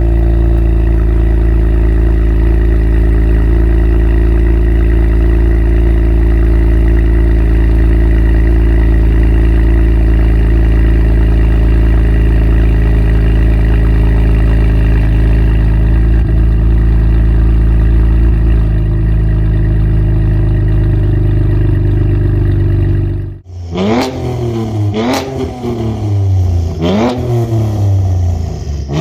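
Cadillac ATS-V's twin-turbo V6 exhaust running at a steady note. About three quarters of the way in the sound cuts off suddenly, and then the engine is revved in about four quick blips, its pitch rising and falling each time.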